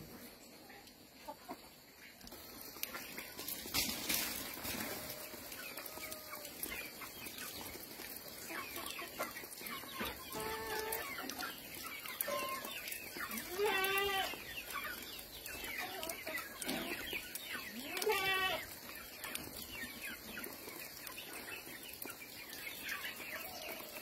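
A flock of chickens clucking and calling, with louder wavering calls about ten, fourteen and eighteen seconds in. A short burst of noise about four seconds in.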